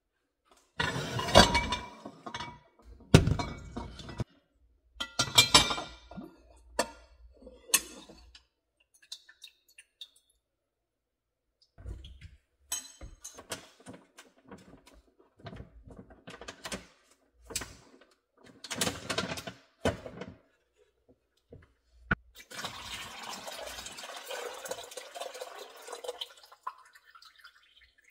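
Kitchen handling sounds: bowls knocked and set down and a plastic strainer bag rustling, in a string of separate knocks. Near the end, yogurt whey pours in a steady stream for about four seconds.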